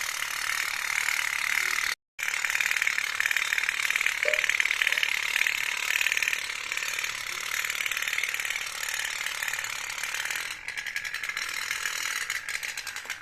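Toy steamboat running with a fast, steady rattling putter. The sound cuts out briefly about two seconds in, and the separate clicks come through more clearly near the end.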